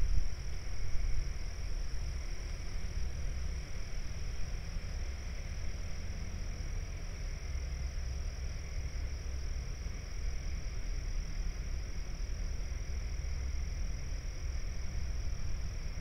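Steady night-time outdoor chorus of calling insects and frogs, heard as a continuous high trill over a low rumble.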